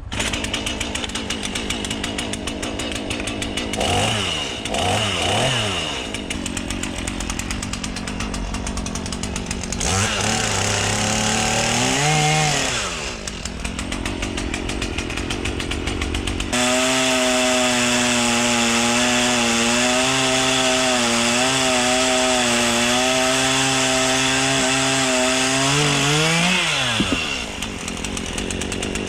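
Stihl chainsaw cutting into a cherry log, the engine's pitch swinging up and down with throttle and load. From about halfway it holds a steady high rev for some ten seconds, then drops back near the end.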